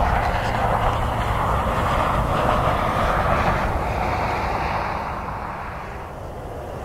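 Jet airliner's engines on the runway, a steady roar that slowly fades as the aircraft moves away, with wind buffeting the microphone underneath.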